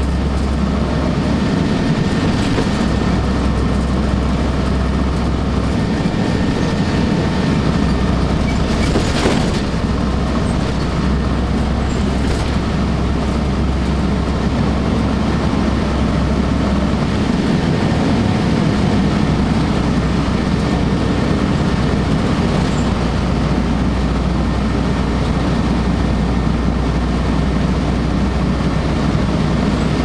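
Interior sound of a 2002 Blue Bird CS transit bus under way: its Cummins ISC straight-six diesel and Allison automatic transmission give a steady low drone over road noise, with a few brief body rattles.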